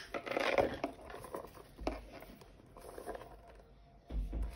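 Hands handling an embossed leather clutch bag: soft rubbing and rustling of the leather, with a sharp click about two seconds in and a couple of low bumps.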